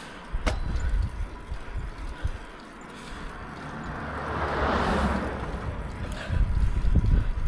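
Wind buffeting the microphone in uneven gusts, with a vehicle passing: its noise swells to a peak about five seconds in and then fades.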